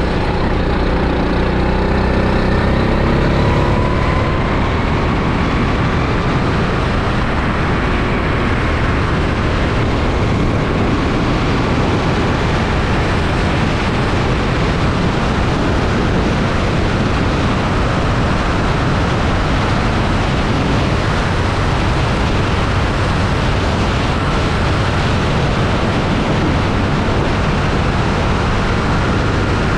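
Rental go-kart engine heard onboard at speed under heavy wind and road noise, its pitch rising and falling faintly as it accelerates and slows.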